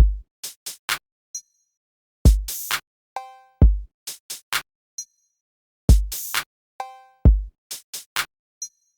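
Electronic background music: a sparse drum-machine beat of deep kicks and short clicky hits, with a brief synth chord stab, the pattern repeating about every three and a half seconds with silence between the hits.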